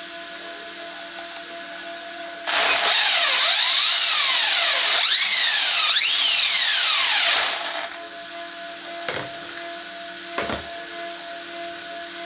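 Electric motor and drivetrain of an RC car converted from nitro to electric, revved with the wheels spinning free: a loud whine that starts suddenly, rises and falls in pitch about three times, and stops after about five seconds. It runs on a six-cell battery backed by a 16-farad supercapacitor.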